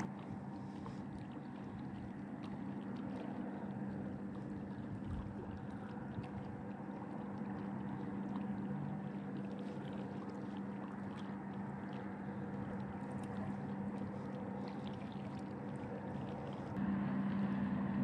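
Steady low motor drone holding one pitch, getting a little louder near the end.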